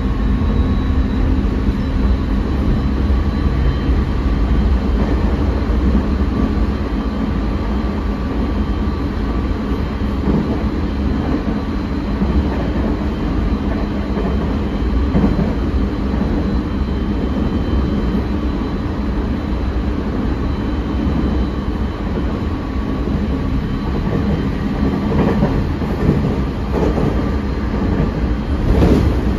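Onboard running noise of a JR 209 series 500-subseries electric commuter train travelling at speed: a steady rumble of wheels on rail with faint high steady tones, and a few rail-joint clicks near the end.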